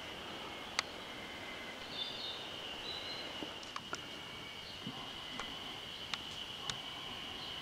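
Mountain forest ambience: a steady high insect drone, with a couple of brief bird chirps about two and three seconds in and scattered small clicks.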